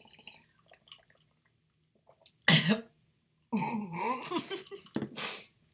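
A woman coughing and clearing her throat: one sharp cough about two and a half seconds in, then a longer rough bout of coughing near the end. The yogurt she has just tasted is coating her throat.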